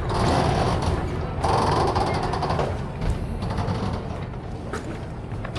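Steady low rumble of a moving passenger vehicle, with creaks, rattles and a few sharp clicks over the engine and road or water noise.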